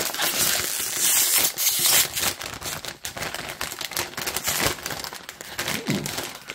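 Plastic snack bag crinkling and rustling as it is handled and opened, loudest about one to two seconds in, then settling into lighter crackles.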